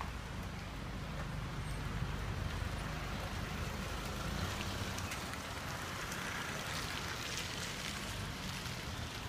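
Steady outdoor rain ambience: a low rumble under an even hiss of light rain, with a few faint drop ticks in the second half.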